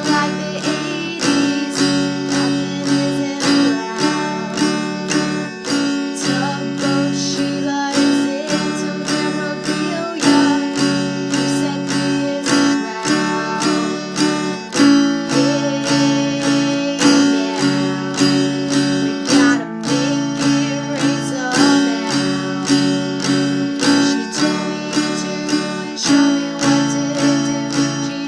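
Acoustic guitar strummed in a steady rhythm, about two strums a second, with chords ringing between the strokes.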